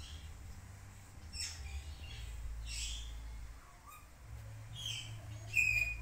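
Hill myna giving about four short, shrill calls a second or so apart, the last the loudest, near the end.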